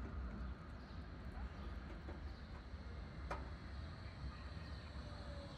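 Flexity tram approaching and slowing into the stop over a low street rumble, its electric drive giving a faint whine that falls in pitch near the end. A single sharp click about three seconds in.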